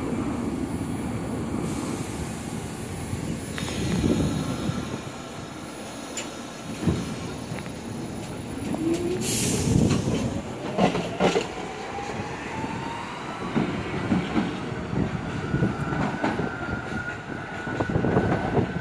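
MTA R46 subway train pulling out and gathering speed, its wheels clacking over the rail joints. About halfway through, its traction motors set up a whine that climbs steadily in pitch, with a brief loud hiss near the middle.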